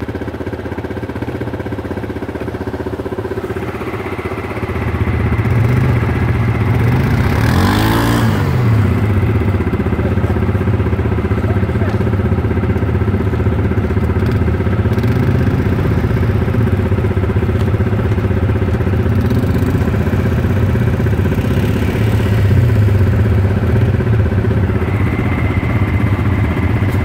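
ATV (quad bike) engines running steadily, louder after about four and a half seconds. About eight seconds in, one revs up and back down with a brief rushing noise, and it revs again more gently a little before twenty seconds.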